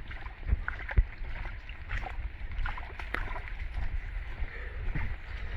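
Heavy rain and running floodwater, a steady rushing noise with scattered sharp taps and a low rumble underneath.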